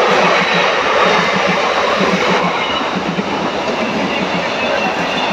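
A Mumbai suburban electric local train runs past along the platform. It makes a loud, steady rumble, and its wheels clatter in a rapid, even rhythm over the rail joints.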